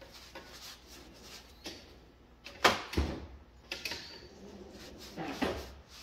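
Metal parts and tools being picked up and set down on a workbench during a bearing swap: a few clunks and clinks, the loudest about two and a half seconds in.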